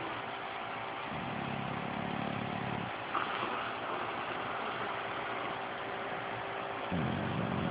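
English bulldog snoring in deep sleep: two low snores, each lasting about two seconds, one starting about a second in and the other near the end. An electric fan runs at full blast underneath with a steady rushing noise.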